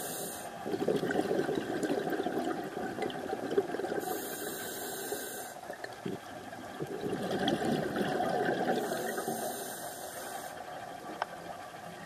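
Scuba diver breathing through a regulator underwater: a short hiss on each inhale alternates with a longer gurgle of exhaled bubbles, twice in a slow rhythm.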